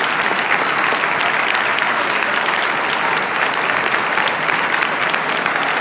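Large theatre audience applauding steadily, a dense, unbroken wash of many hands clapping.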